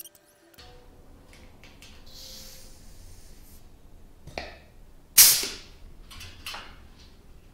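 Pneumatic rivet squeezer setting a rivet in a thin aluminium practice strip: a light click about four seconds in, then one loud sharp stroke just past five seconds that dies away over about half a second, and a fainter one about a second later.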